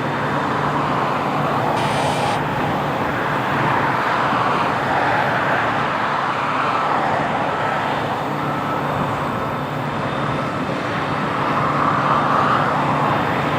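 John Deere S690 combine's diesel engine running steadily, a low hum under a rush that slowly swells and fades, with a brief hiss about two seconds in.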